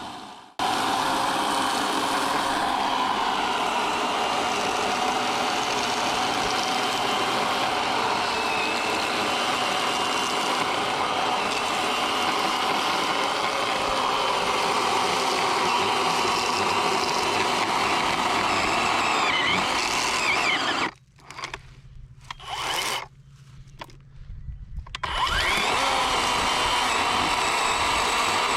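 Worx WG384.9 40-volt cordless electric chainsaw with an 18-inch bar running and cutting wood, its motor whine wavering and dipping under load. It stops for a few seconds about three-quarters through, with one short burst of running in the gap, then runs again.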